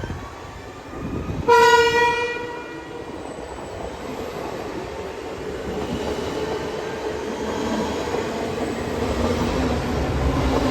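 Train horn sounding one short, loud blast on a single note about a second and a half in, followed by the running noise of the train, growing steadily louder.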